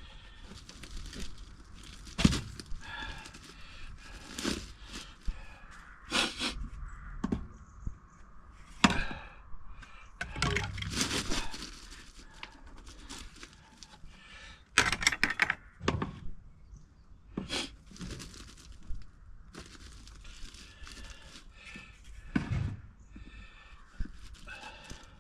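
Plastic drainage fittings being handled and pushed into place: irregular knocks, clatters and scrapes, a dozen or so sharp ones spread unevenly, the loudest a cluster of clacks about fifteen seconds in.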